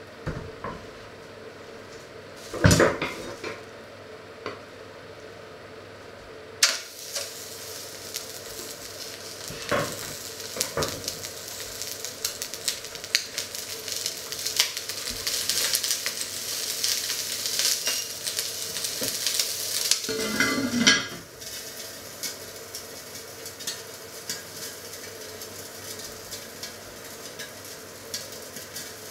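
A chicken leg sizzles as it fries in a hot enamelled cast-iron casserole. The sizzle starts suddenly about six seconds in, with cookware clanking about three seconds in. Near the three-quarter mark a heavy lid clunks on and the sizzle becomes quieter and muffled.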